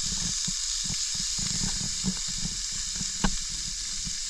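Banded morwong fillet frying in garlic butter on a hot grill plate: a steady sizzle with small crackles and one sharper pop a little after three seconds in.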